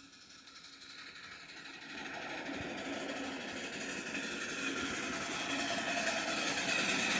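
Miniature ride-on railway train coming closer, the sound of its running and its wheels on the track growing steadily louder.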